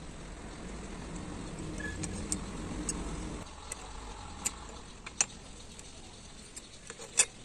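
Bent steel bars clinking against each other and the bender's steel frame as they are handled: a few sharp metallic clicks, the loudest about five and seven seconds in. A low background rumble fades out about three and a half seconds in.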